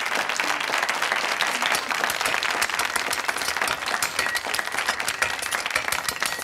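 Studio audience applauding: many hands clapping in a dense, steady stream.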